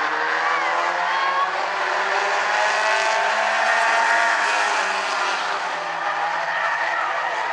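Engines of a pack of small Bumblebee-class stock cars racing together: several engines at once, their pitches overlapping and sliding up and down as they rev through the turn.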